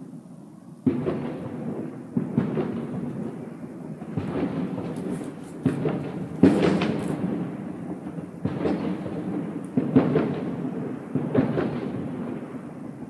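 Fireworks going off: a string of about nine sudden booms, each trailing off in a rolling rumble, with a brief spell of crackling near the middle.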